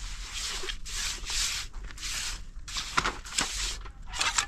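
A series of short scraping or rubbing strokes, each under half a second, in an uneven rhythm of roughly one to two a second.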